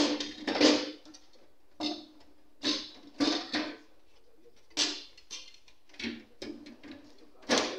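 Sheet-metal side panel of an HP ProDesk 600 G1 tower case being laid on, shifted and refitted against the steel chassis: a dozen or so short metallic knocks, clicks and scrapes with quiet gaps between.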